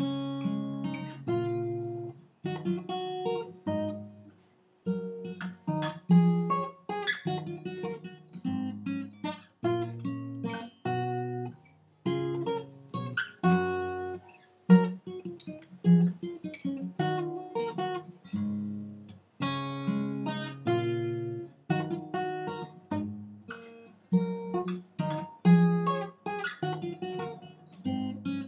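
Solo acoustic guitar playing a chord progression, each strummed chord ringing out and fading, with a few short pauses between phrases.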